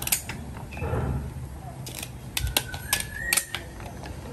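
Kitchen scissors snipping through king crab leg shell: a run of sharp, crackling clicks, most of them bunched in the second half.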